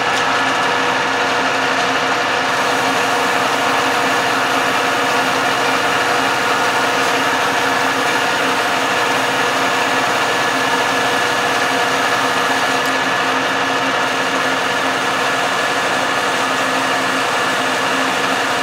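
Metal lathe running with the automatic carriage feed engaged, the cutter taking the final pass as the carriage advances steadily; a constant machine sound of motor and gear train with several held tones.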